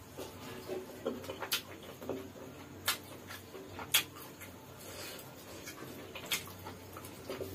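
A man chewing and smacking his lips, eating food by hand close to the microphone, with four sharp clicks spread through.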